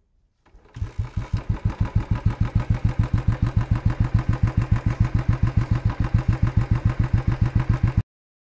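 Royal Enfield Bullet Twinspark 350 single-cylinder four-stroke engine starting about half a second in and settling into a steady idle, a fast even beat of firing pulses. It is idling to circulate an engine-oil flush through the engine before the oil is drained. The sound cuts off suddenly near the end.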